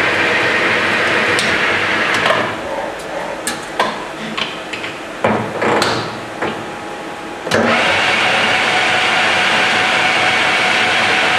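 Metal lathe running steadily while turning an oiled metal workpiece. About two seconds in the running noise drops away, leaving a few seconds of clicks and knocks from handling at the chuck and tool post. About seven and a half seconds in the steady running comes back at full level.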